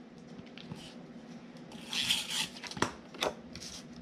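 Adhesive tape being laid onto a square of cardstock: a short rasp of tape pulled and pressed about halfway through, amid light paper handling, with two sharp clicks near the end.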